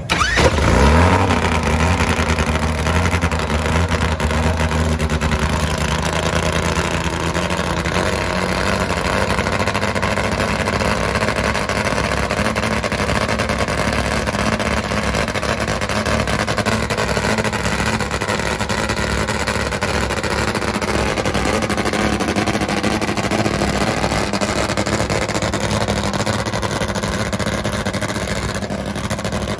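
Nitro-burning Top Fuel drag motorcycle engine fired up: it catches suddenly and revs up over about the first second, then runs steadily and loudly at idle on the starting line.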